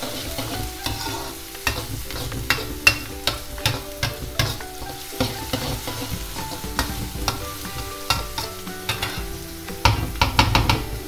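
A spatula scraping and clinking against a brass kadai as chopped onions are stirred, with the onions sizzling in hot oil as they fry toward golden brown. The strokes come irregularly, with a quick flurry of scrapes near the end.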